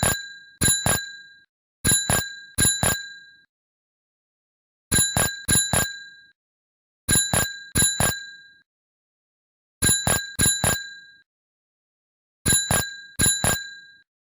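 Bicycle bell rung in six quick bursts, each of about four rapid strikes, with pauses of one to two seconds between bursts. Every strike rings out brightly and dies away within about half a second.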